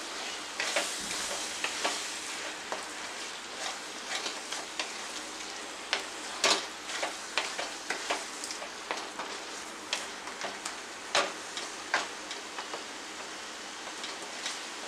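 Wooden spatula stirring thick soya chunk curry in a non-stick kadai: irregular scrapes and knocks against the pan over a steady sizzle of the masala frying in oil.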